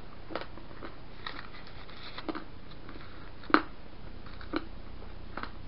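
A few soft, scattered clicks and smacks of a person eating a small piece of candy, the loudest about three and a half seconds in, over a low steady room hum.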